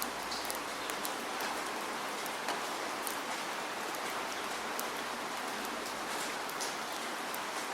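Steady rainfall, a constant hiss of rain with scattered sharper drop ticks on a surface.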